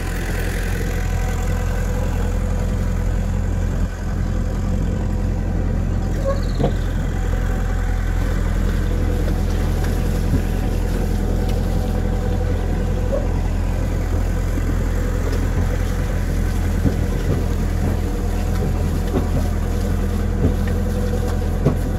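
Tractor engine running steadily, pulling a loaded trailer along a muddy track, with a constant low, even hum.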